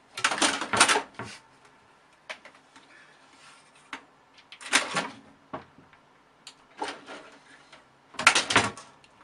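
A kitten's claws scrabbling and knocking against the side of a computer tower case: three bursts of clattering scratches about four seconds apart, with a few lighter ticks between them.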